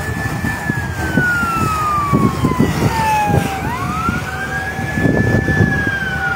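Emergency vehicle siren wailing: each wail rises quickly, holds, then falls slowly over about three seconds, and a second wail begins about three and a half seconds in. A second, lower siren tone holds beneath the second wail and then falls near the end, over rough low rumbling noise.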